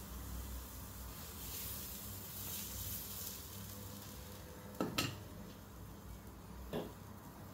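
Faint sizzling from a herb pancake frying in the pan. Kitchen tongs are set down on a plate with a sharp clack about five seconds in, followed by a lighter knock near the end.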